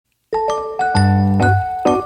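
Background music: a light tune of quick, sharply struck melody notes starting about a third of a second in, with a low bass line joining about a second in.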